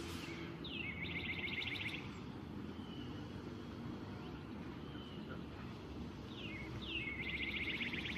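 A songbird singing twice, each song a couple of quick downward-slurred notes followed by a fast trill lasting about a second, over faint low background noise.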